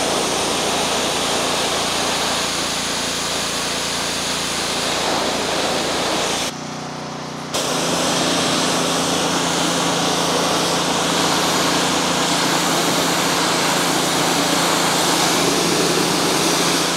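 A DeWalt 3100 PSI gas pressure washer's single-cylinder Honda GCV170 engine running steadily under load, with the loud hiss of the high-pressure spray hitting composite deck boards. The spray hiss drops out for about a second while the engine keeps running.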